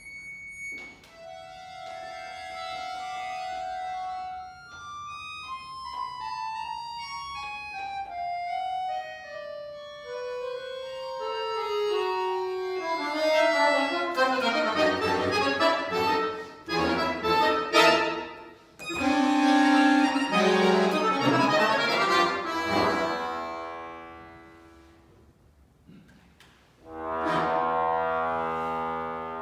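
Solo accordion playing contemporary concert music: a slow falling line of single held notes sinks step by step from high to middle register, then thickens into loud, dense cluster chords. These fade away, and after a short lull a loud held chord sounds near the end and dies away.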